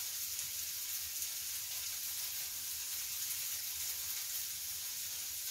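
Food sizzling steadily on a tabletop grill plate, a constant high hiss.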